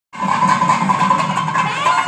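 Traditional temple-festival music: drums beating in a fast rhythm under a sustained high piping tone, with a rising glide near the end. It cuts out for a split second right at the start, then resumes at full level.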